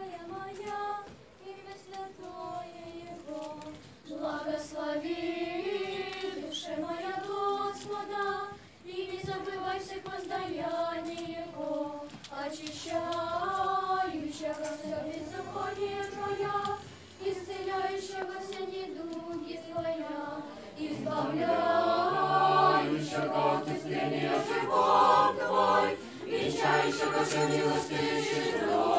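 A cappella church choir of girls and women singing Orthodox liturgical chant in unison. About two-thirds of the way in, a lower voice enters holding long steady notes under the melody, and the singing grows louder.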